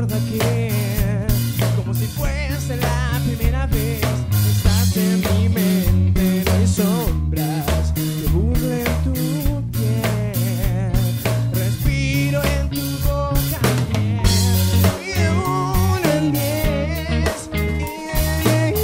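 Live rock band playing a ballad: a man sings into a microphone, with vibrato on his held notes, over a drum kit and guitar.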